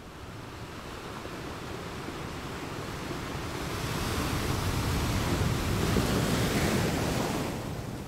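Ocean waves breaking on the shore: the surf swells over the first few seconds, stays loudest for a few seconds, then eases off near the end.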